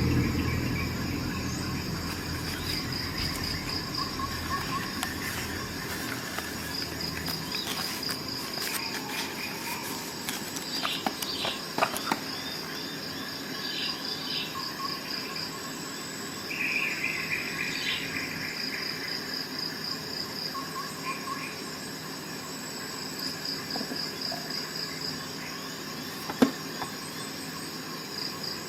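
Insects chirping in a steady pulsing high trill, with scattered bird calls. A low rumble fades out in the first few seconds, and a few sharp clicks come through, the loudest near the end.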